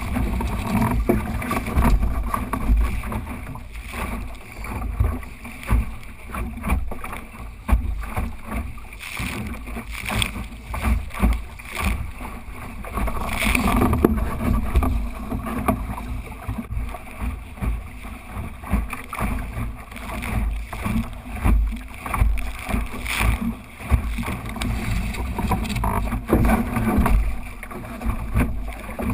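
Wind buffeting the microphone of a camera mounted on a small sailing dinghy, with water rushing and splashing along the hull as the boat sails. The wind on the microphone comes and goes in uneven gusts.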